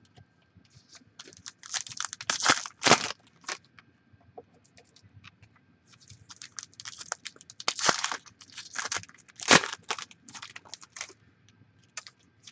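Trading cards being flipped through and set down onto stacks on a wooden tabletop: crisp rustling and light snaps of card stock, in two busy spells with a lull between.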